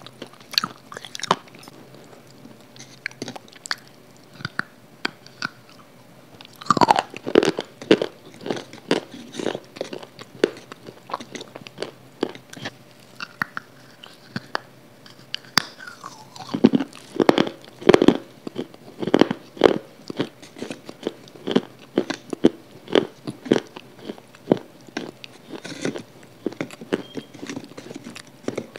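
Close-miked biting and chewing of a hard, crunchy white block of food, a string of sharp crunches and crackles. The crunching comes thickest about seven seconds in and again around seventeen to twenty seconds in.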